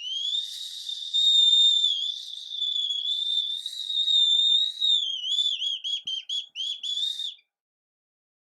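Large hand-made whistle drawn with a 3D pen, being blown: a long, steady, high whistle for about five seconds, then a quick run of about ten short toots before it stops.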